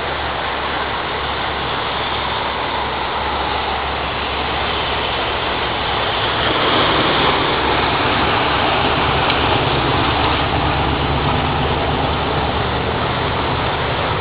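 Floodwater running across a road, a steady rushing wash that grows a little louder about halfway through. In the second half a pickup truck's engine joins in low underneath as the truck drives through the flooded road.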